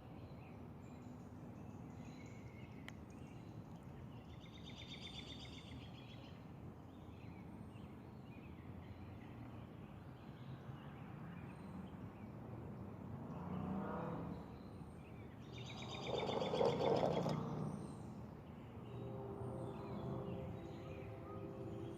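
Outdoor ambience: steady background noise with birds calling, including two high, rapid trills, one about five seconds in and a louder one past the middle, alongside a louder swell of lower noise.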